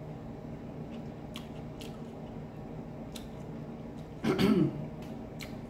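Close-up mouth sounds of someone eating seafood boil: a few faint wet clicks of chewing, then a short throat sound a little past four seconds in, over a steady low hum.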